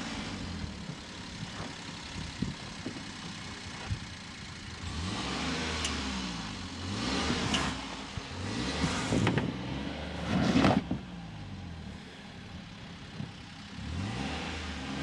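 Daihatsu Hi-Jet mini truck's small engine driven off-road, revving up and falling back several times, with short bursts of rushing noise in between.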